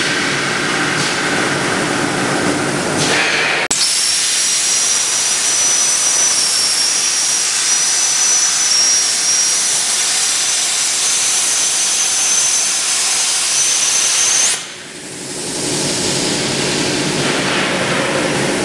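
CNC plasma pipe-cutting machine: its motors run with a hum, then the plasma arc strikes suddenly and cuts the square tube with a steady hiss and a thin high whine that rises slightly. The arc stops abruptly about eleven seconds later, and the machine's motors run again as the chuck turns the tube.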